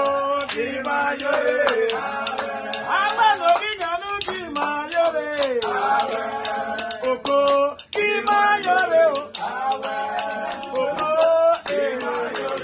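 Male voices singing a melodic song with long, gliding lines, over sharp percussive taps that keep the beat.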